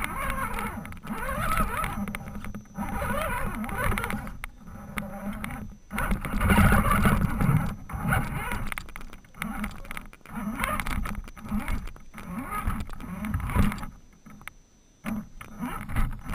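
RC rock crawler's motor and geared drivetrain running in bursts, with a whine that rises and falls with the throttle, close up. Tyres and chassis knock and scrape over rocks. It goes quieter shortly before the end.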